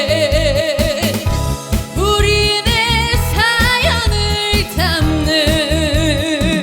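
Trot song: a melody of long held notes with wide vibrato over a steady beat with bass.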